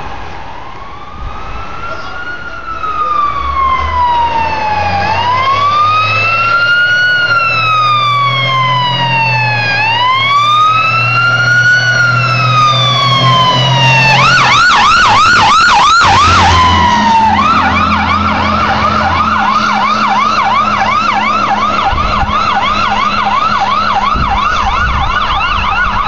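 Fire truck siren on a slow wail, rising and falling about every five seconds and growing louder as the truck approaches. About halfway through it switches to a fast yelp, which runs on, briefly broken, to the end.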